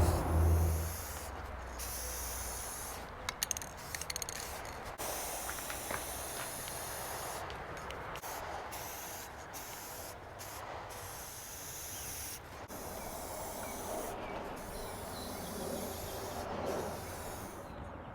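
Aerosol can of silver spray paint hissing in repeated bursts with short pauses between them, as steel rods are coated against rust. A few sharp clicks come about three to four seconds in.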